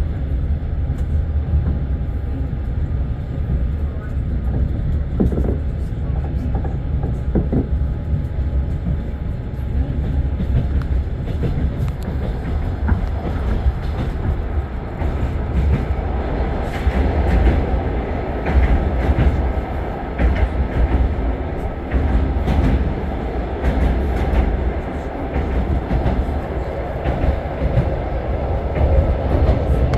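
Passenger train running on the rails, heard from inside the carriage: a steady low rumble with the clickety-clack of the wheels over the rail joints, the clacks coming thicker and the noise rising in the second half as the train gathers speed.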